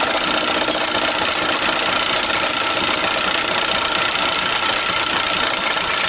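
Small metal lathe running steadily, its gear train and drive clattering with a thin steady whine, while a round-nosed cutting bit takes a slow cut on the spinning workpiece.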